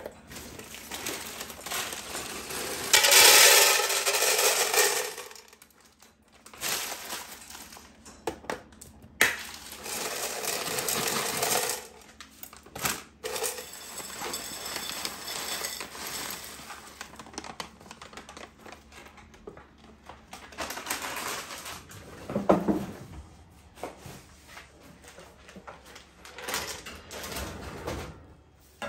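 Dry pasta poured from its packet rattling into clear plastic canisters and a glass jar, in several bursts, with plastic packaging crinkling and short clicks and knocks of plastic lids and containers being handled on the countertop.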